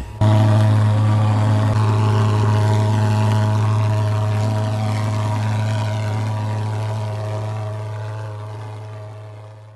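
Portable thermal fogging machine's pulse-jet engine running with a steady, low buzzing drone while it sprays disinfectant fog. The sound fades out over the last few seconds.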